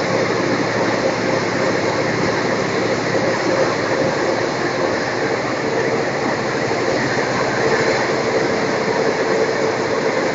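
Steady running noise of a moving passenger train heard from inside the carriage, with a faint steady tone underneath.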